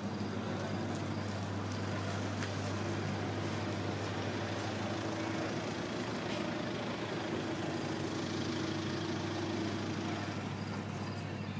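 Steady low mechanical hum, as of an engine running, with a faint higher tone joining from about three seconds in to about ten seconds in.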